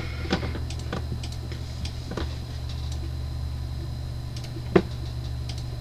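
Computer mouse clicking four times over a steady low electrical hum, the loudest click about three-quarters of the way in.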